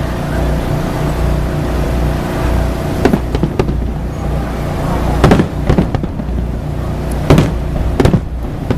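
Aerial fireworks bursting: a series of sharp bangs, several in quick pairs, starting about three seconds in, over a steady low rumble.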